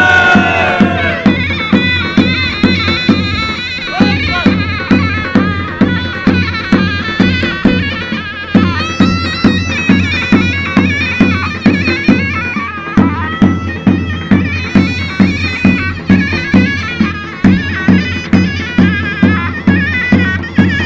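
Turkish folk dance music: a loud, shrill reed pipe plays a continuous melody over a steady, evenly repeating drum beat.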